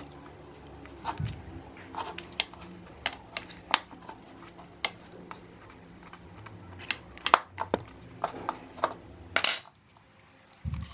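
Metal spoon clicking and scraping against a plastic bowl as it presses a lump of acetone-softened styrofoam, in light, irregular clicks about one or two a second, with a short scrape near the end.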